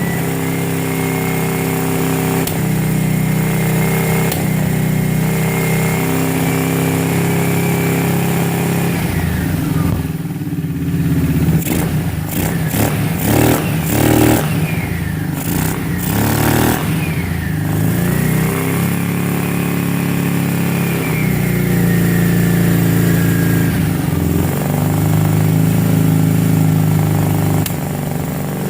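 Kawasaki Brute Force 650 quad's carbureted V-twin, warmed up, idling steadily, then blipped several times about ten seconds in with uneven sharp pops and spits before settling back to idle. The coughing, spitting and backfiring through the front carburetor is a fault the owner cured by clearing the carburetor's fine passages.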